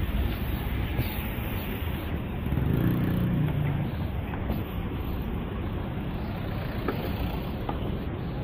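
City road traffic: cars driving past close by, with a low-pitched swell as one passes about three seconds in.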